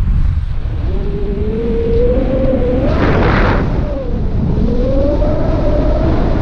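Wind rushing over the camera microphone in paragliding flight, a steady low rumble with a whistling tone that slowly rises in pitch, twice. A brief louder hissing gust comes about halfway through.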